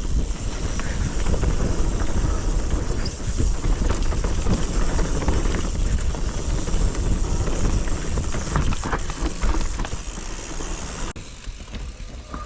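Mountain bike running down a steep, rough trail: tyres on dirt and rock, with the frame and chain rattling over the bumps and a low rumble of wind on the microphone. It gets quieter about eleven seconds in.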